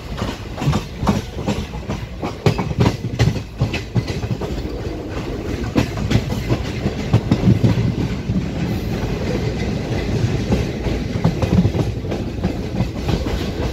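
Train running along the track: a steady low rumble with repeated clickety-clack of the wheels over the rail joints.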